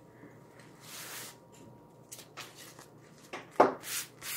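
Hands rubbing an adhesive silk-screen stencil over a terry towel to fuzz it, taking off some of its tackiness: soft swishing strokes, with one louder thump about three and a half seconds in.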